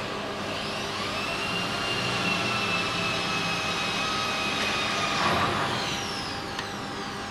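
CNC plasma cutting table's drive motors whining as an axis moves: the pitch rises about a second in, holds steady, and falls away around five to six seconds in, over a steady rushing machine noise.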